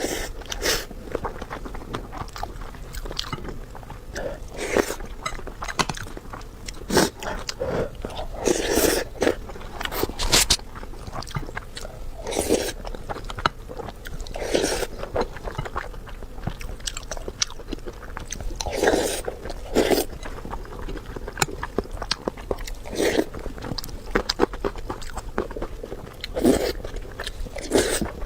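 Close-miked eating sounds: a person biting and chewing food, with irregular short crunches and wet mouth clicks every second or so.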